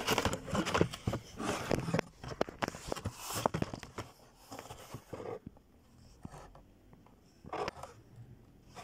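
Carded Hot Wheels cars being handled in a cardboard shipping case: cardboard and plastic blister packs scraping, rustling and clicking as one is pulled out. The noise is busy for the first three and a half seconds, then thins to a few scattered clicks.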